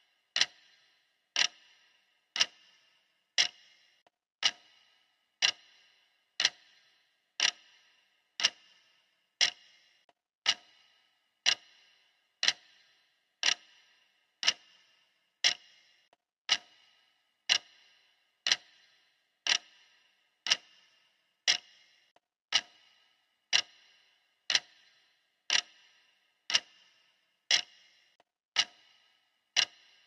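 Clock ticking steadily, one sharp tick each second, each with a brief ring after it.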